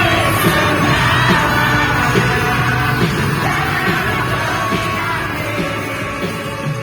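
Live pop-rock band music with singing and shouting, fading out toward the end.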